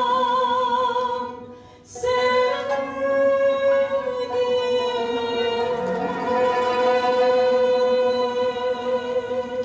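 A woman singing a slow song, holding long notes with vibrato; a short break about a second and a half in, then a new phrase of sustained notes that fades near the end.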